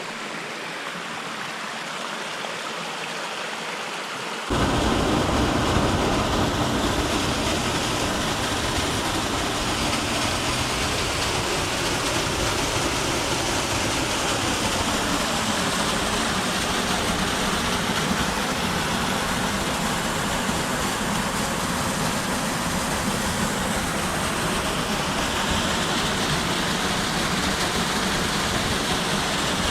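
Waterfall's rushing water, a steady hiss; about four and a half seconds in it jumps suddenly louder and fuller, with a deep rumble added, and holds steady.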